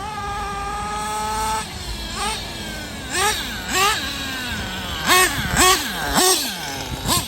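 Nitro engine of a Kyosho Inferno NEO ST 3.0 RC truggy held at a steady high pitch for about a second and a half. It is then revved in a series of short throttle blips, the pitch rising and falling about eight times, the loudest near the end.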